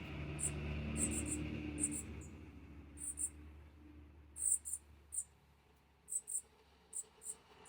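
Short, very high-pitched chirps, irregularly spaced and often in quick pairs, from a small animal. A low rumble sits under them in the first few seconds and then fades away.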